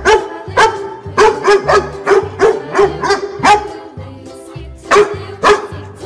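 Children's background music with repeated short dog barks over it, coming in quick runs of several barks with a brief pause near the middle.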